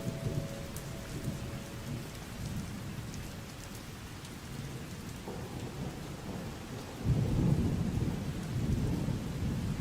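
Steady rain, with a low rumble of thunder swelling about seven seconds in.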